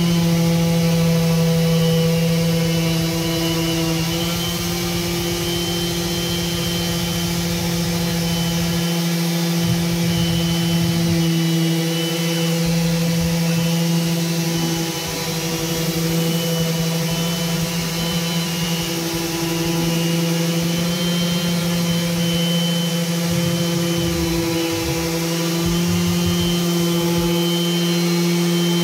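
Random orbital sander running steadily, its pad working across the end-grain face of a wooden cutting board: a constant motor hum with a thin high whine above it.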